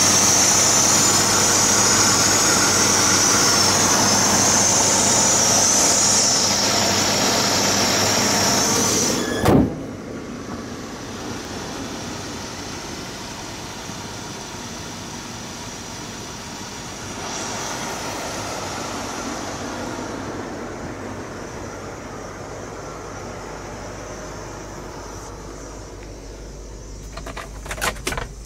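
1976 Lincoln Mark IV's 460 V8 idling steadily, heard up close in the open engine bay with a bright, high steady hiss over the running. About nine seconds in a thump cuts it to a quieter, steady idle. A few clicks come near the end.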